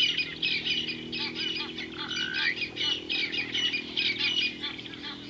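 A chorus of many small birds chirping and calling at once, a dense, continuous stream of quick high notes.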